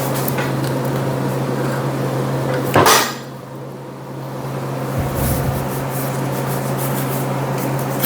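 Metal clanks as a switchable lifting magnet set into a steel welding table is tested: one sharp, loud clank about three seconds in and a softer thud around five seconds, over a steady low hum.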